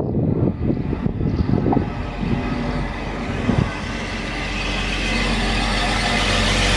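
Grand Central Class 180 diesel multiple unit approaching on the line: a steady low engine drone under a rushing noise that grows steadily louder over the last few seconds as the train nears. Gusts of wind buffet the microphone in the first couple of seconds.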